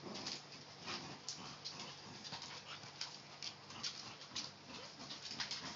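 A bulldog and a smaller dog play-fighting, with dog whimpers and many quick, sharp clicks and scuffles.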